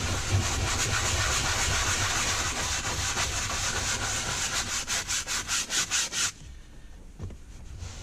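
Hand upholstery brush scrubbing a cloth car seat, working a sprayed-on upholstery cleaner into the fabric. A steady scratchy rubbing breaks into quick back-and-forth strokes and stops abruptly about six seconds in.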